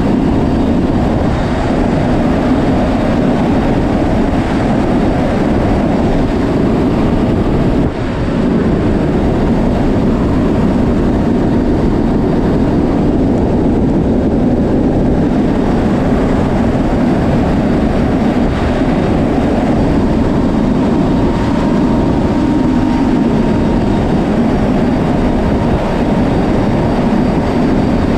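Steady loud roar in the cargo hold of a C-130J Super Hercules flying with its rear ramp open: the aircraft's four turboprop engines and the slipstream rushing past the open ramp. There is a brief dip about eight seconds in.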